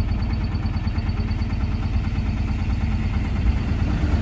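Mahindra Jeeto diesel engine idling steadily.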